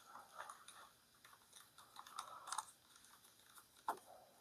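Quiet scraping and light clicks of small metal parts being handled as a Rossi Gallery .22 pump rifle's receiver is taken apart by hand, with one sharper click near the end.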